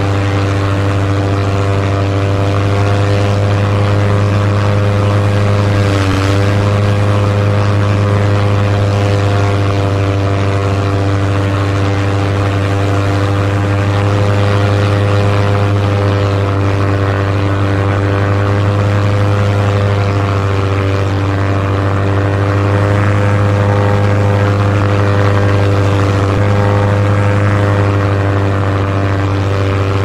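Inside the cabin of a small light propeller airplane in flight: the engine and propeller drone steadily with a strong low hum. The pitch dips briefly about six seconds in.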